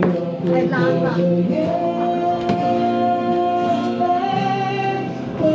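Music with singing: a voice holding long notes over an instrumental accompaniment.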